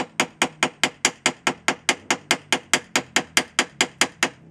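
Hammer blows on a block of softwood held against a pillow block bearing, driving the sealed ball-race bearing onto the end of a wagon axle. Rapid, even strikes, about five a second, that stop just before the end.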